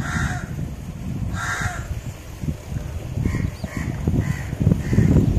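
A crow cawing: two loud caws about a second and a half apart, then a run of shorter, fainter caws from about three seconds in, over a steady low rumble.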